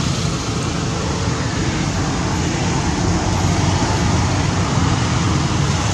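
Steady background noise with a strong low hum.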